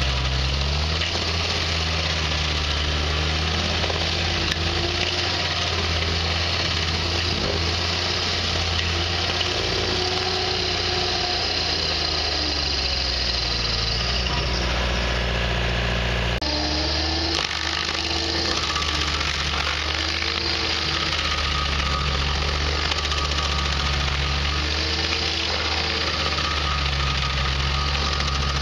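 Stump grinder's engine running hard as its toothed cutting wheel chews into a tree stump. The steady drone wavers in pitch as the wheel bites, with a brief sudden change in the sound about halfway.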